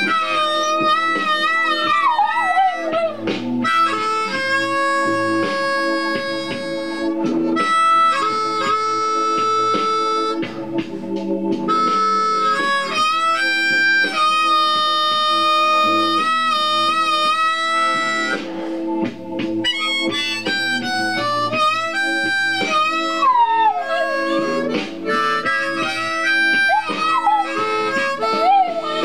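Harmonica playing blues over a backing track, with held notes and a few sliding, falling notes near the end.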